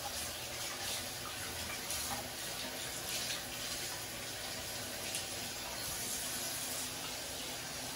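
Bathroom sink faucet running steadily into the basin, the stream splashing over a small child's hands as she rinses them.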